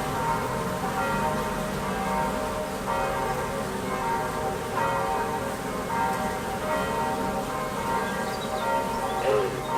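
Church bells ringing, several bells pealing continuously, restruck again and again. Beneath them runs the buzz of honeybees flying at the hive entrance.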